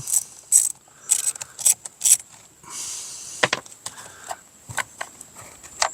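Scattered clicks and light knocks from a Torx screwdriver and the plastic parts of a two-stroke weed trimmer being handled while it is taken apart, with a short scraping rustle about three seconds in.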